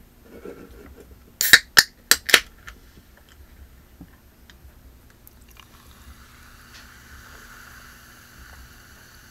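Four sharp clicks in quick succession, then Cheerwine soda poured from a can over ice into a glass, with a steady fizzing hiss that starts about halfway through.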